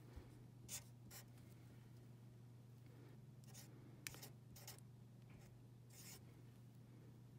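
Felt-tip marker writing on paper: about half a dozen short, faint scratching strokes as letters and bond lines are drawn, over a low steady hum.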